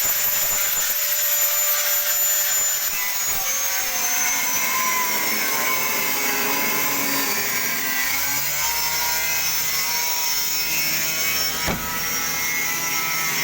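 Angle grinder cutting through the car's sheet-metal rear door panel. Its high whine dips and wanders in pitch as the disc works through the metal.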